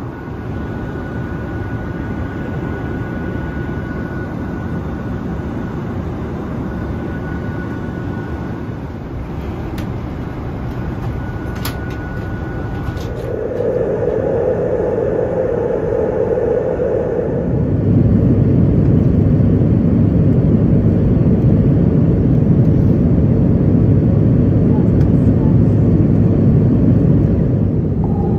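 Steady noise of an Airbus A330-900neo's jet engines in flight, heard from inside the passenger cabin. About two-thirds of the way through it turns louder and deeper.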